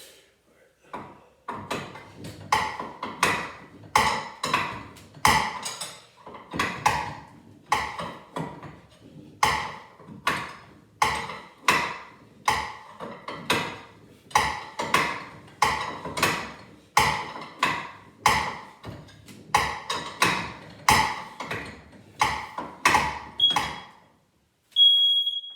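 Steady series of hammer strikes, roughly one and a half a second with a few short pauses, each blow sharp and quickly fading. Near the end a smoke detector sounds two short, high, steady beeps.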